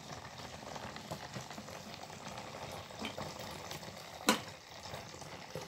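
Hot water pouring steadily into a plastic basin of dried herbs and salt, a splashing liquid sound, with one sharp knock about four seconds in.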